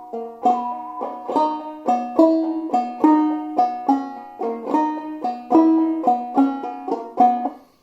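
Five-string banjo played clawhammer style in a dropped double-C tuning (eCGCD), picking out a jig melody in a steady rhythm of plucked, ringing notes. The playing stops near the end.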